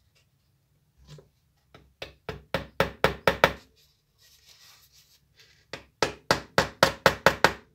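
Small hammer tapping tiny pins into thin wooden strips laid over a cardboard tube. There are two runs of quick taps, about four a second, with a short pause of rustling between them.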